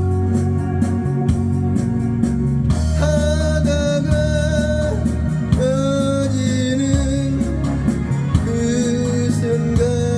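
Music: electronic organ accompaniment over a steady beat, with a wavering, held melody line coming in over it about three seconds in.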